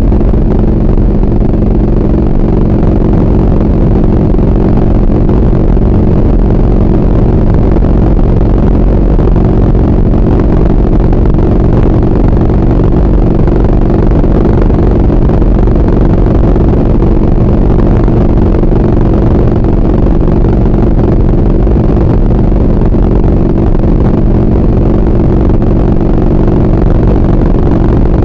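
2003 Harley-Davidson Heritage's air-cooled V-twin engine running at a steady cruising speed on the highway, with wind and road noise over it. The engine note holds the same pitch throughout, with no shifting or revving.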